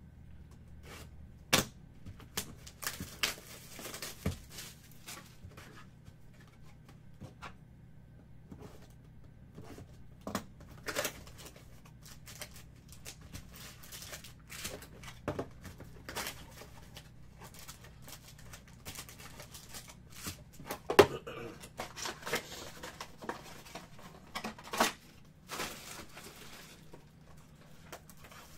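A cardboard Topps Finest baseball card box being opened by hand, its flap folded back and the wrapped packs pulled out and set down on a table: scattered, irregular taps, clicks and rustles, with the loudest knock about 21 seconds in.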